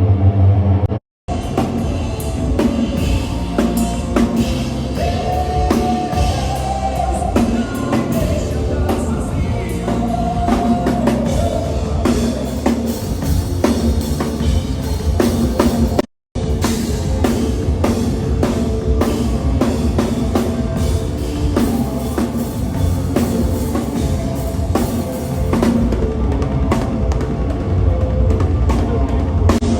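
A rock band playing live at a soundcheck, with the drum kit to the fore. The sound cuts out briefly twice, about a second in and again about 16 seconds in.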